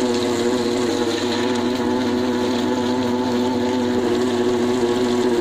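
Electric table-top wet grinder running with a steady hum, its stone rollers turning in the steel drum to grind soaked matta rice with coconut and salt into a stiff, coarse dough.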